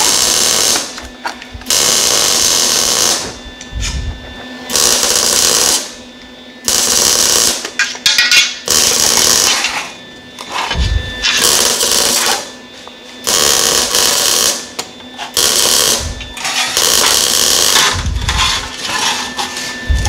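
Angle grinder with a 36-grit flap disc grinding down fresh welds on sheet steel, in about ten short passes of one to two seconds each, with a steady hum carrying on between them.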